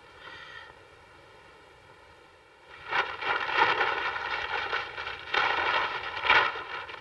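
Paper rustling and crackling loudly in irregular bursts as a newspaper is handled, starting about three seconds in and stopping just before the end.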